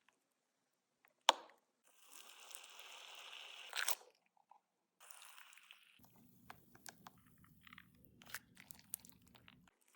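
Slime being pressed and worked by hand, giving crunchy crackles: a sharp pop just over a second in, a hissing crackle of about two seconds, then scattered small clicks and crackles.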